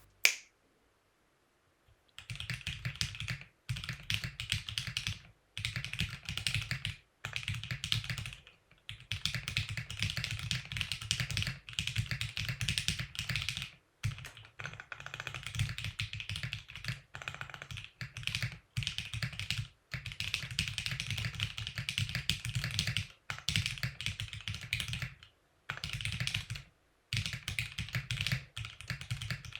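Mechanical keyboard fitted with Omnitype 9009 PBT dye-sub keycaps being typed on quickly, in runs of keystrokes separated by short pauses. It has a PBT-typical sound: less defined than GMK ABS, poppier and deeper in pitch. The typing starts about two seconds in.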